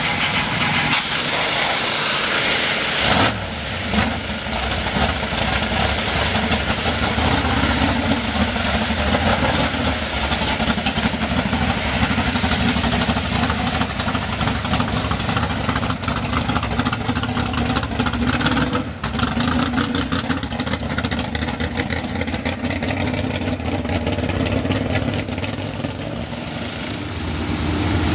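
Lifted mud truck's engine running under the steady hiss of pressure-washer spray, with abrupt changes about three seconds in and again just past the middle.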